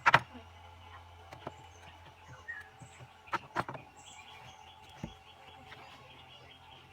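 A few sharp knocks or clicks, the loudest right at the start and two close together about three and a half seconds in, over faint bird chirps and a steady low hum.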